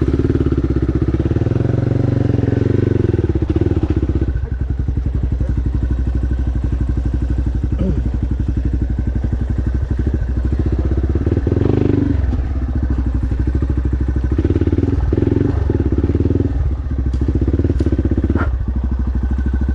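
Dirt bike's single-cylinder engine running at low revs, close to the microphone, with short rises in revs several times as the bike is worked over the obstacle.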